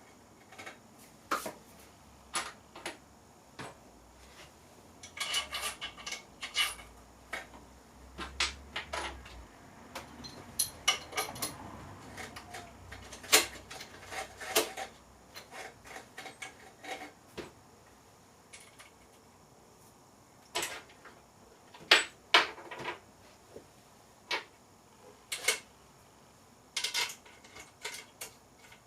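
Irregular metallic clicks, clinks and knocks of bicycle fork, headset parts and tools being handled and fitted to the frame, some in quick clusters and some single sharp taps.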